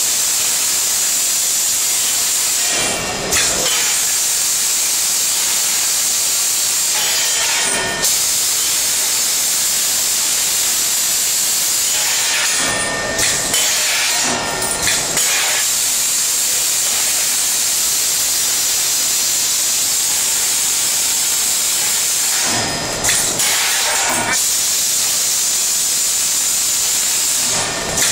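Automatic packaging machine with vibratory bowl feeders running: a steady, loud hiss-like noise, broken a few times by short louder disturbances.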